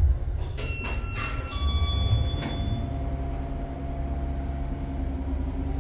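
Otis Hydrofit hydraulic elevator car settling at the landing with a low thud, then a two-tone arrival chime about half a second in, the second tone slightly lower. A few knocks and a steady low hum follow as the single-speed side-opening car door slides open.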